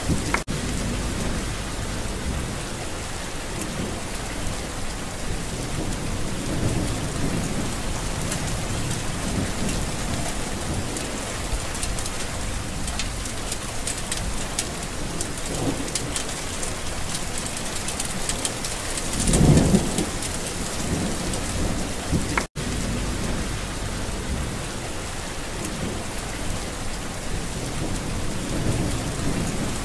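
Steady heavy rain with low rumbles of thunder. A louder roll of thunder comes about two-thirds of the way through, and the sound cuts out for an instant shortly after.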